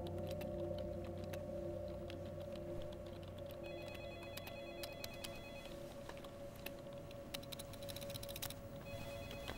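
Clicking of typing on a computer keyboard, with an electronic office telephone trilling twice, each ring about two seconds long, a few seconds in and again near the end. A low steady hum runs underneath.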